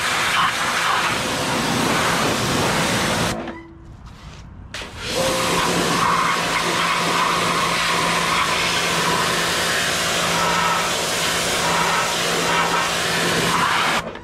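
Pressure washer spraying water onto a mower: a steady loud hiss of the jet over a low hum. It cuts out about three seconds in, resumes a second and a half later, and stops again at the end, as the trigger is released.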